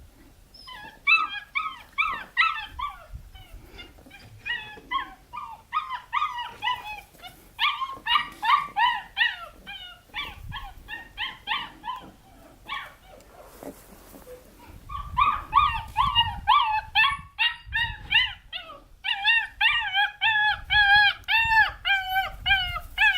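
Border collie puppy whining and yipping in rapid strings of short, high cries, about four or five a second, with a pause of a couple of seconds midway.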